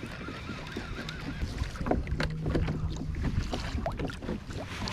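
Water slapping and sloshing against a plastic kayak hull, with wind rumbling on the microphone and scattered knocks. Near the end a hooked croaker splashes at the surface as it is reeled up to the kayak.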